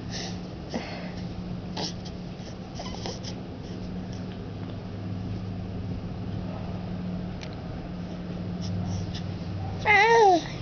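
Two-month-old baby cooing: soft breathy sounds early on, then near the end one loud pitched coo that rises and falls, over a steady low hum.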